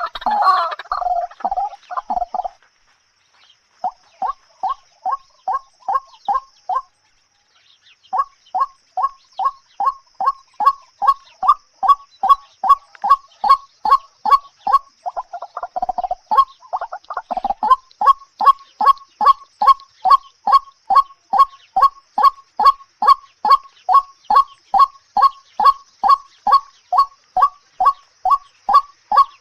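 A bird calling: a burst of busier calling at the start, then a long, very even run of short repeated notes, about three a second, which break off briefly about seven seconds in and then carry on.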